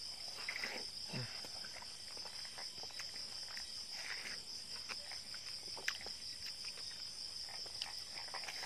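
A steady high chirring of night insects, with a man biting into and chewing a juicy slice of watermelon about half a second in and again around four seconds in.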